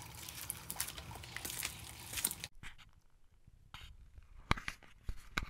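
Water dripping and splashing off a wet pond filter box as it is handled, a dense crackle of drips and clicks. About two and a half seconds in it cuts off abruptly to a quiet stretch with a few scattered faint clicks and knocks.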